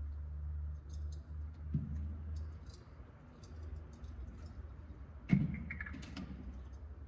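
Scattered small clicks and taps of parts and tools being handled, over a steady low hum that fades after the first couple of seconds. A single sharp knock comes about five seconds in.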